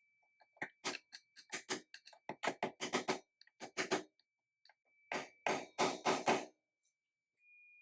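An uneven run of sharp knocks on metal, about twenty in all, as the new triple clamp is tapped further down onto the steering stem. A faint steady high whine sits underneath and grows slightly louder near the end.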